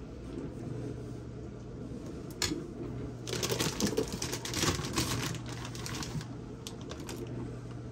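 Kitchen handling noises while filling and rolling a tortilla: a single knock, then a couple of seconds of quick crackling clicks and rustles, and a few more clicks near the end, over a steady low hum.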